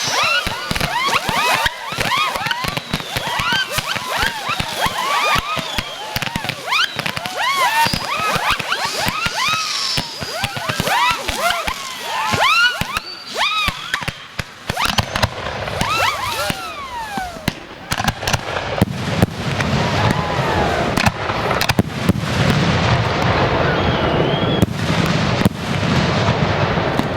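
Fireworks display: a rapid string of pops and crackles mixed with many short whistling tones. After about fifteen seconds it turns into a denser, continuous crackling hiss.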